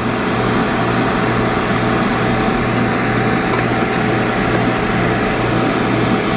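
Refrigerant recovery machine running steadily, its compressor pulling R-22 out of an air-conditioning system into a recovery tank: an even mechanical noise over a constant low hum.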